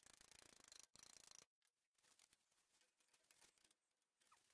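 Near silence: a faint hiss with fine crackling ticks, cutting out briefly about a second and a half in.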